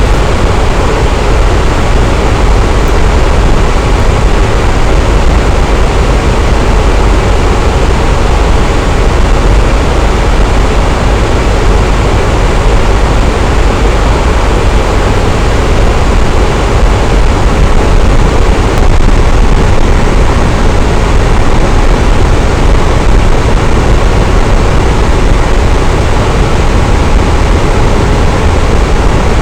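Electric fan running steadily, a constant whooshing noise with a strong low rumble and no changes.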